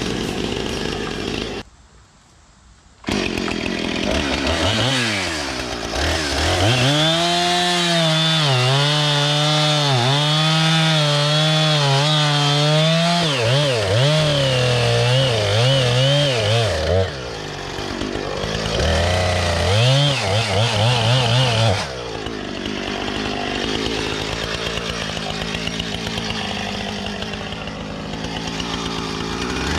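Husqvarna 455 Rancher two-stroke chainsaw revving up and cutting through birch, its pitch dipping and recovering under load and falling back between cuts. The sound drops out for about a second about two seconds in.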